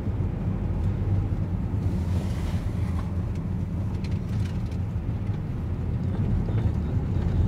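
Steady low rumble of a moving car's engine and tyres on the road, heard inside the cabin.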